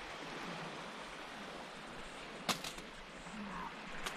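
Steady hiss of surf and wind on a shingle beach, with a sharp knock and a couple of quick taps about two and a half seconds in and another knock near the end: a knife striking the driftwood log used as a chopping board while red onion is cut.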